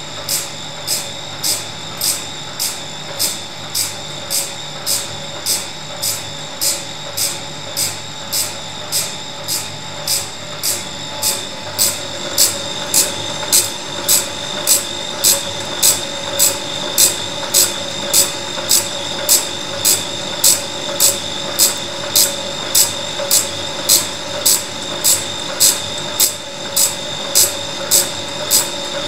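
KUBOL band saw sharpening machine's abrasive wheel grinding the teeth of a 10 mm-pitch band saw blade one tooth at a time: a steady motor whine with a rasping grind repeating about every 0.6 seconds as the blade is indexed tooth by tooth. The grinding strokes get louder about twelve seconds in.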